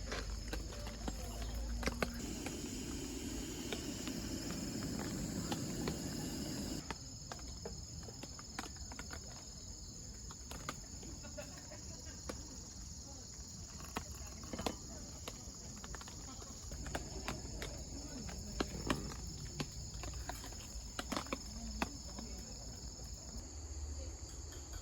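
Insects, crickets by the sound of it, chirping steadily, with scattered light clicks and taps. The lower background noise drops away about seven seconds in.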